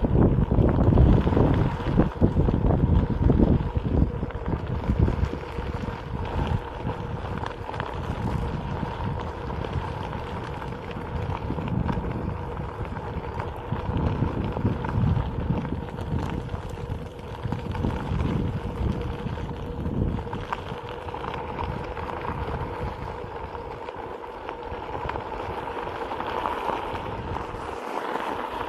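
Wind buffeting the microphone and a rough low rumble from a self-balancing one-wheel electric board rolling over gravel, with a faint steady hum underneath. The rumble is heaviest at the start and eases somewhat later on.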